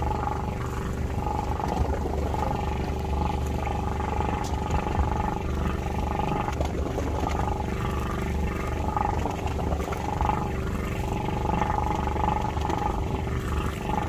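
Steady low rumble with a steady hum, as from a boat's engine at sea, while a fishing reel is wound in against a small fish on the line.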